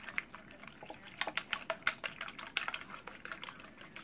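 Eggs being beaten in a bowl: a rapid, uneven run of light clicks as the utensil strikes the bowl, busier from about a second in.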